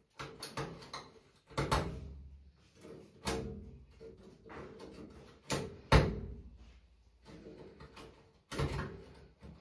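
Irregular knocks and bangs of things being handled and moved, several separate strikes with the loudest about six seconds in.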